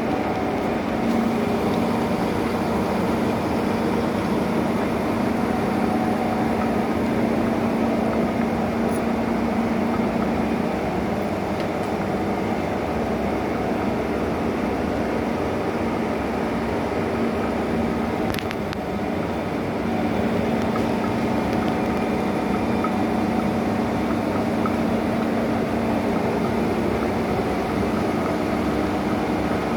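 1M63 lathe running steadily: a continuous mechanical drone with a hum held at one pitch, dipping briefly about two-thirds of the way through.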